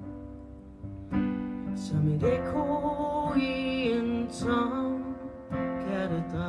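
Music: strummed acoustic guitar chords, with a woman's voice singing a slow, drawn-out melody over them from about two seconds in.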